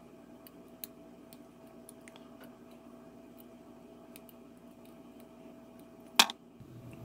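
Small scattered clicks and scratches of a hobby knife blade picking at heat-shrink tubing over a fuse on a pack of CR123A lithium cells, with one sharper click about six seconds in, over a faint steady hum.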